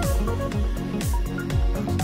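Background music with a steady electronic beat: a deep kick drum about twice a second under sustained synth tones.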